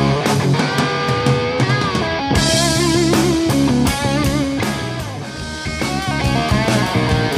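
Blues-rock power trio playing an instrumental break: a lead electric guitar plays bent, wavering held notes over bass and drums with cymbals.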